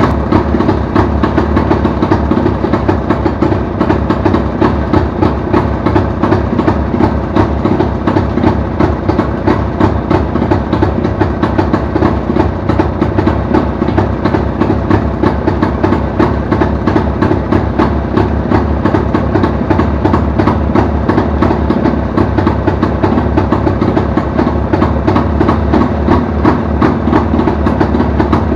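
Jawa 350 motorcycle's two-stroke twin engine idling steadily with a fast, even beat.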